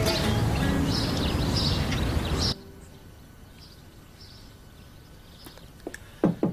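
Outdoor ambience with birds chirping over a low steady drone, cutting off abruptly about two and a half seconds in to a quiet room. Near the end come two sharp knocks on a door.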